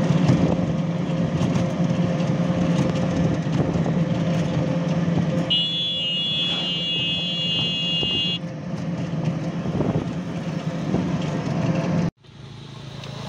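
Steady engine and road noise of a vehicle on the move, heard from on board. A high, steady tone sounds for about three seconds partway through, and the sound cuts off suddenly near the end.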